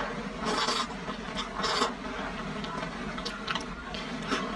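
Close-miked wet slurping and chewing of potato flour noodles coated in chili sauce, in two longer slurps about half a second and a second and a half in, with scattered short smacking clicks.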